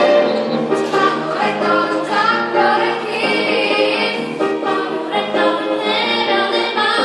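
Choir singing, several voices in harmony holding and changing notes together.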